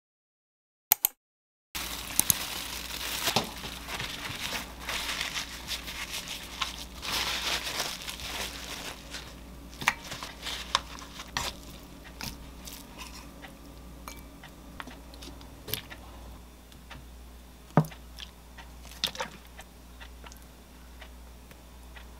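Kitchen handling sounds: after a short silence with a single click, several seconds of plastic crinkling and rustling, then scattered taps and clicks of containers and utensils on a wooden cutting board, with one louder knock about three quarters of the way through.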